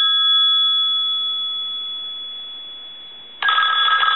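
Western Electric 10-key Touch-Tone desk telephone's bell ringer on a ring cycle: the gongs ring out and fade slowly after one ring, then the next ring starts loudly near the end. The phone is ringing in properly on a test ring.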